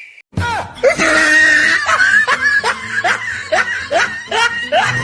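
A person laughing in a rapid run of short bursts, about two a second, over background music; it starts suddenly about half a second in.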